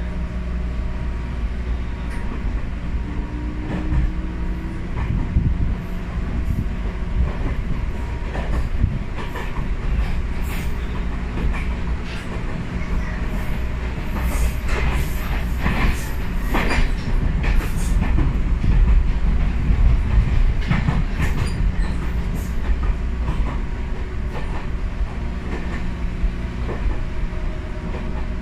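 Interior running noise of a Ryutetsu 5000-series electric train, a former Seibu New 101-series car: a steady low rumble with the wheels clattering over rail joints, the clicks coming thickest in the middle stretch.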